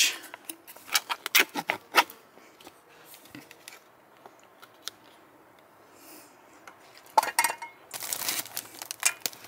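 A foil-lidded ration tray being peeled open and its food tipped into a stainless steel mess pan: small clicks and ticks, a quieter stretch, a sharp tap, then a burst of rustling near the end.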